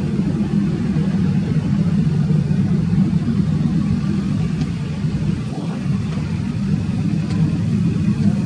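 Airbus A330-300's twin General Electric CF6-80 turbofans at climb power, heard from the ground as a steady low rumble while the jet climbs away after takeoff.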